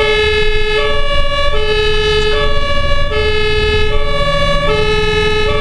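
Ambulance's German two-tone siren (Martinshorn) heard from inside the cab: a low and a high note alternate, each held about three-quarters of a second, over the engine and road noise.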